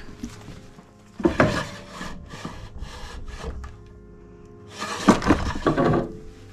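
Small wooden drawer of an old sewing machine table sliding open with a dry wood-on-wood scrape about a second in, then pushed shut with a second scrape near the end.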